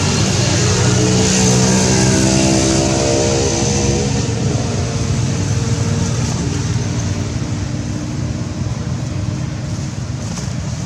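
A motor vehicle's engine running close by, loudest in the first few seconds and then fading into a steady traffic rumble.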